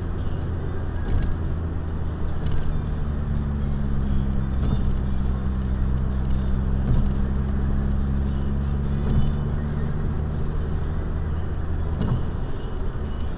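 Car driving at expressway speed, heard inside the cabin: a steady low drone of engine and tyre noise, with a few faint knocks.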